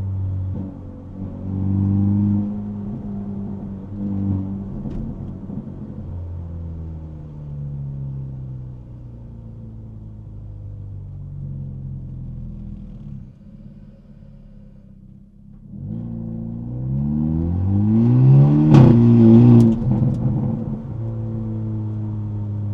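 Hyundai Elantra N's turbocharged 2.0-litre four-cylinder exhaust under driving: a couple of short rises in revs, then revs falling away and settling low and quiet. About two-thirds through it climbs hard to a loud peak with a few sharp cracks, then drops back to a steady cruise. Heard through the car body from the trunk.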